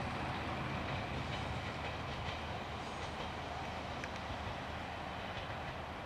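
Single-car JR Shikoku Kiha 32 diesel railcar running along the track: a steady low engine drone with a few light clicks of the wheels over rail joints, easing off slightly as the railcar moves away. No horn is sounded.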